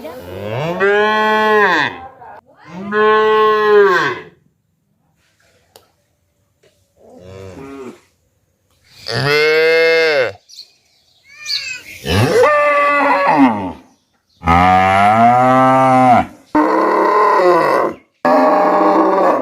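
Cattle mooing: a string of about eight long, drawn-out moos, each rising and then falling in pitch, from deeper calls to higher, strained ones, with a pause of a few seconds about a quarter of the way in.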